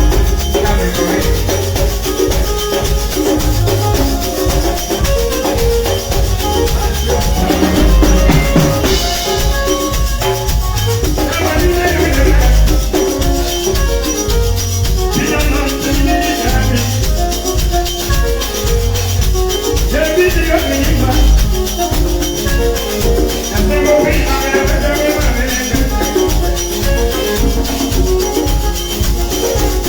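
Live band music through the PA, with drums and a shaker over a steady beat.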